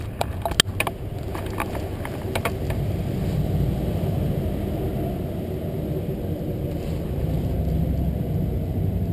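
Yamaha R1 inline-four engine idling with a steady low rumble. Several sharp clicks and rattles of gear being handled in the first couple of seconds.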